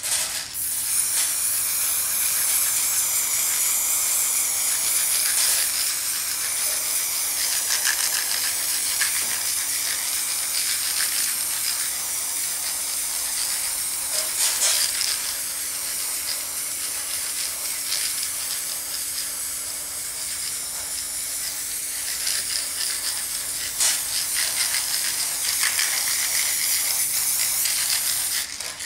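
Aerosol spray paint can hissing steadily as black paint is sprayed in long, near-continuous passes.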